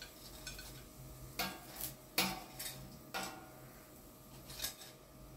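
About half a dozen light clinks and taps of kitchen utensils on the plate of an electric grill, the loudest just after two seconds in, as the last grilled skewer is lifted off.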